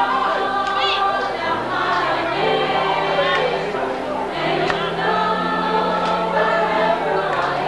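A choir of many voices singing together in long held notes.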